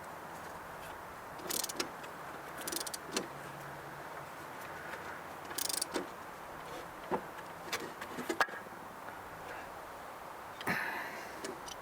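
Scattered short metallic clinks and knocks, about eight of them, over a steady low hiss: tools and metal parts being handled while a walk-behind lawnmower's blade is refitted.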